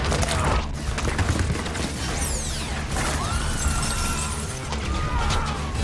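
Film sound design of Gatling-gun fire smashing through concrete walls: crashing, shattering debris over a deep, constant rumble and a music score, with falling whooshes about two seconds in.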